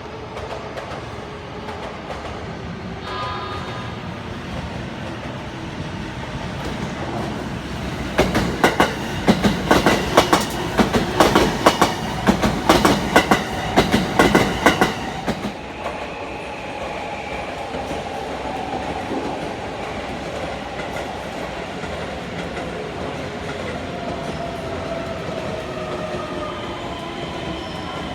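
Japanese passenger train running on rails with a steady rumble. From about a third of the way in, a run of loud rapid clacks and knocks from the wheels lasts several seconds, then the train runs on steadily with a faint whine slowly shifting in pitch.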